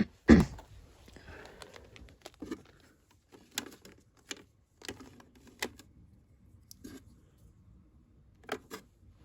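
Prizes and packaging being handled and set in place: a loud knock just after the start, then scattered clicks and light taps with some rustling.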